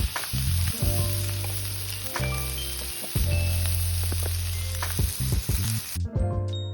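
Food sizzling in a hot frying pan, a dense steady hiss that cuts off abruptly near the end, over background music.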